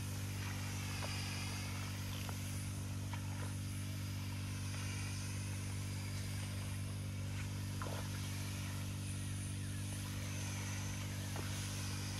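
Small single-cylinder four-stroke 139F petrol engine of a portable power sprayer, running steadily at constant speed to drive the spray pump.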